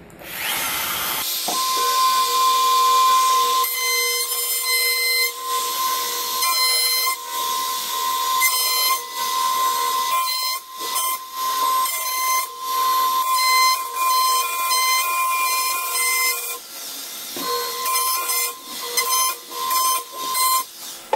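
Makita compact trim router with a flush-trim bit spinning up and running with a steady high whine, broken by repeated short rasping cuts as the bit chews off the protruding plywood teeth along the hull's chine.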